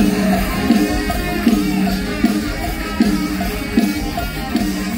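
Loud live band music played over a concert sound system, with a steady beat.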